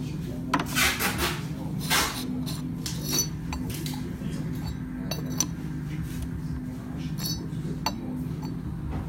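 Yixing clay teapot clinking as it is handled, the lid knocking against the body: a series of sharp clicks, several with a short high ring, over a steady low hum.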